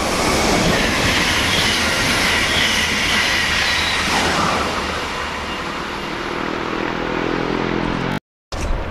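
Intercity passenger train passing through the station at speed: a loud rush of wheels on rail with high whining tones, then a humming tone that grows near the end. It cuts off suddenly just after eight seconds in.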